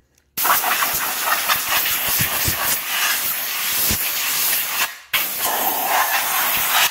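Compressed-air blow gun hissing as it blows sanding dust out of metal mini bike rims, in two blasts: a long one of about four and a half seconds, then a brief break and a second blast near the end.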